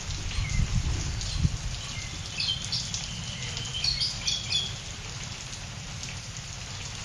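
Steady rain with a caged canary giving short, scattered chirps, mostly between about two and five seconds in. Low thumps and flutter in the first second and a half, from the bird moving on its perch.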